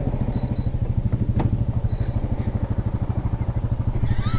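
Low, steady throb of an idling engine, pulsing about ten times a second, with a single sharp click about a second and a half in.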